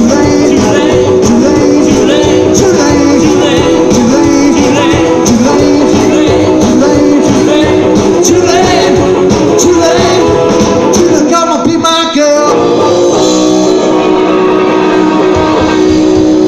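Live rock-and-roll band playing loudly in a hall: upright double bass, drums and electric guitar. Briefly breaks off about twelve seconds in, then carries on.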